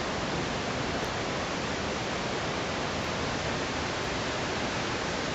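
Steady, even rush of the Savica waterfall's falling water.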